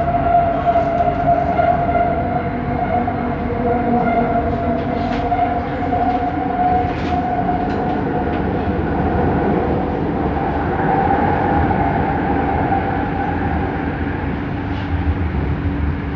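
Bombardier Innovia Metro 300 train running, its linear induction motor giving a steady whine over the rumble of the ride. The whine steps slightly higher about ten seconds in, with a few faint clicks.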